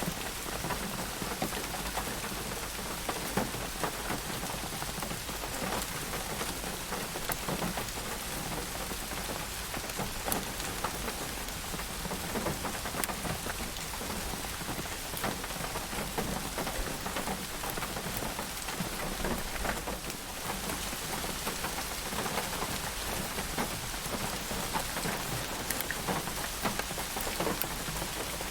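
Steady rain falling, a dense even hiss with many small drops ticking on a surface.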